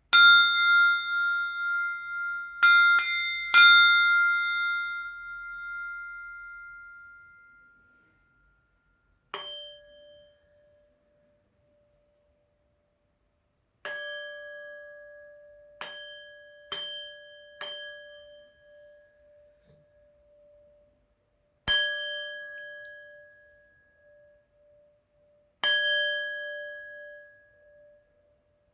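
Crystal glasses struck one at a time, each giving a clear ring that fades over several seconds. Three quick strikes at the start give a higher ring; from about a third of the way in, seven more strikes give a lower-pitched ring.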